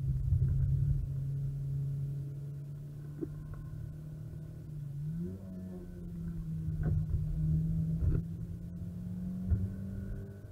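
Renault Clio RS R27's 2-litre inline-four engine under way, heard from inside the cabin at a steady note. Its pitch climbs quickly about five seconds in and then holds higher. Several short thumps come through, one at the start and three in the second half.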